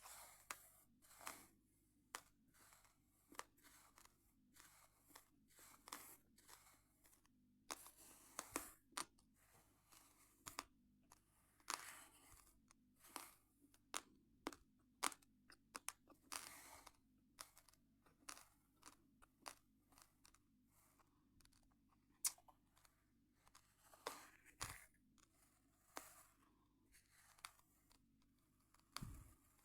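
Close-miked crunching and chewing of uncooked rice grains: a continuous run of sharp, irregular cracks, several a second, as the hard grains are bitten and ground between the teeth.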